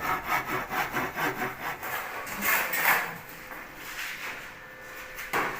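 Handsaw cutting through wood with quick, even back-and-forth strokes, about four or five a second, stopping about three seconds in. A single sharp knock comes near the end.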